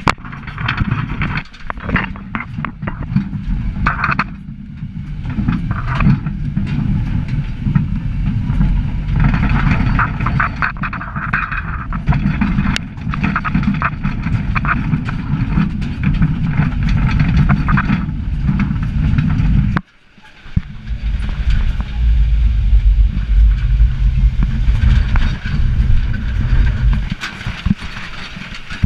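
A truck driving over a bumpy road, heard from on board: a heavy low rumble with constant rattling and knocking as it jolts. The sound drops out briefly about twenty seconds in, then comes back.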